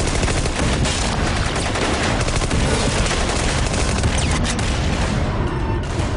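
Sustained heavy gunfire: many shots overlapping into a continuous rapid rattle over a deep low rumble, thinning slightly near the end.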